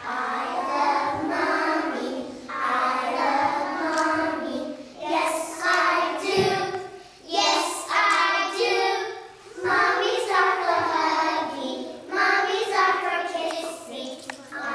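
A group of preschool children singing a song together, in short phrases with brief pauses between.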